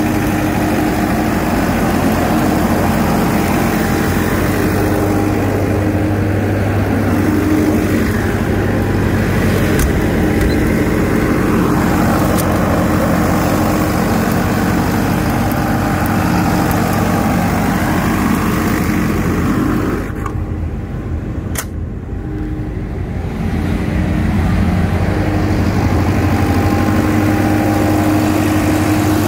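Kohler 80ROZS generator set's water-cooled Deutz diesel engine running steadily at its governed 1500 rpm. About twenty seconds in, the sound goes dull for a few seconds, with one sharp click in the middle, then comes back to full.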